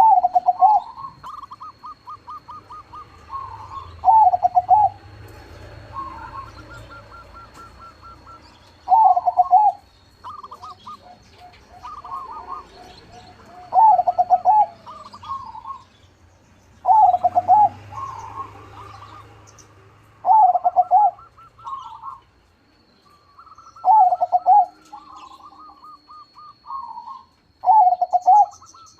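Crossbred zebra doves (perkutut crossing) cooing: loud, clipped coo phrases come about every three to four seconds, with quieter rapid trilled coos between them.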